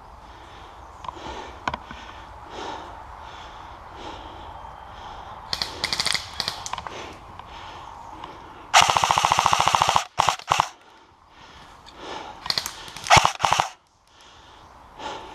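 Airsoft guns firing: a few scattered shots, then a rapid full-auto burst of just over a second about nine seconds in, followed by shorter bursts.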